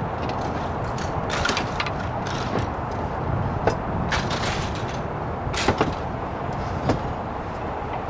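Clay S-tiles knocking and clinking against one another as they are handled and stepped on: a scattering of sharp clacks, the loudest a little past the middle, over steady background noise.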